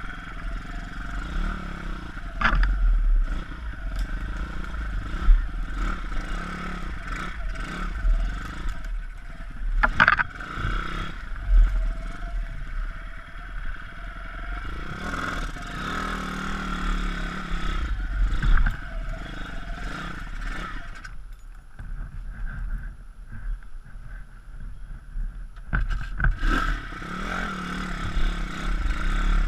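Pit bike's single-cylinder engine running at low revs over a rough, muddy trail, with scrapes and clattering knocks as the bike pushes through undergrowth and over bumps.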